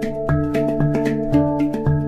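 Hang drum music: steel handpan notes struck by hand and left ringing, over a low note repeating about twice a second.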